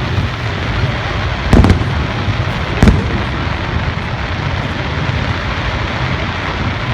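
Aerial fireworks shells bursting: two loud booms about a second apart, a little after the start, over a steady background hiss.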